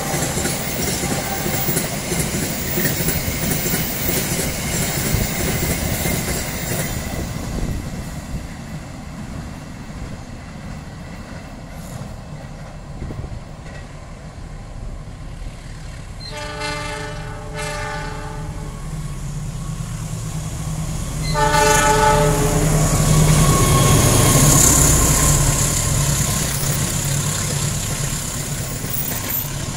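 A freight train's flat wagons roll past with clattering wheels and fade away. About halfway through, a train horn blows, first twice close together and then once more a few seconds later, as a passenger train of silver coaches approaches and rumbles past, the loudest part near the end.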